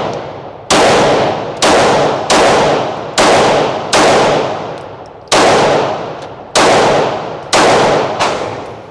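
Glock 43X 9mm subcompact pistol fired in a steady string of nine shots, about one a second, each with a long echoing decay.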